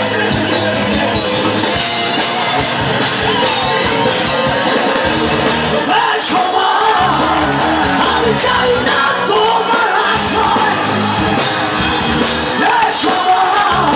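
Live rock band playing with electric guitars and drums, with a voice singing over the band from about six seconds in.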